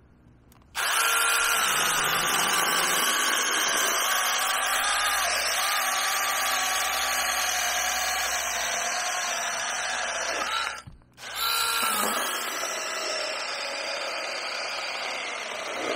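Cordless brushless NaTiddy 6-inch mini chainsaw cutting through a small branch, its high whine sinking a little in pitch as the chain bites into the wood. It runs about ten seconds, stops for about a second, then spins up again with a rising whine and keeps cutting.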